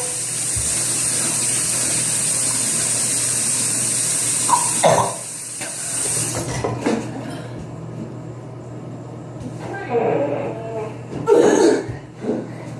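Water running steadily from a tap with an even hiss, which stops about six and a half seconds in. A few brief voice sounds come near the end.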